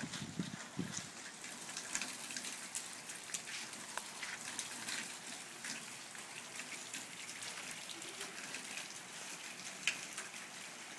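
Steady rain falling on the ground, with many individual drops ticking sharply close by.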